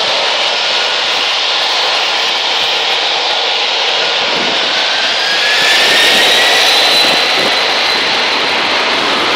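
Distant Boeing 747-400 jet engines running at the runway end, a steady rushing noise. About four seconds in, a whine rises in pitch and then holds high as the engines spool up for the takeoff roll, and the noise gets a little louder.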